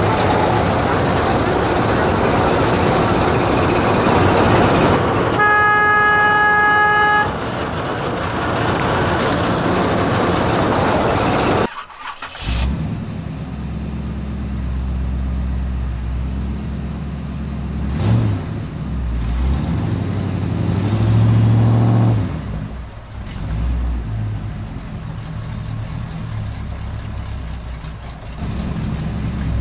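Truck engine sounds with a horn blowing one long note for about two seconds, some five seconds in. After an abrupt break about twelve seconds in, a low engine rumble runs on, swelling twice and easing off.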